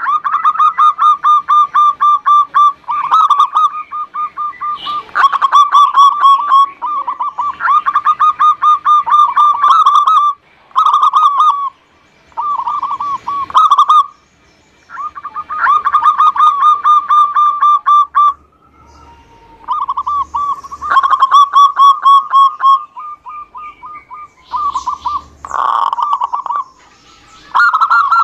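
Zebra dove (perkutut) singing: phrase after phrase of fast, rapidly repeated staccato cooing notes, each run lasting one to three seconds with short gaps between.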